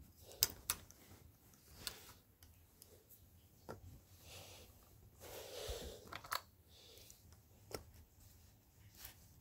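Handling noises around an open clarinet hard case: a scattered series of light, sharp clicks at irregular intervals, with a soft rustle about midway.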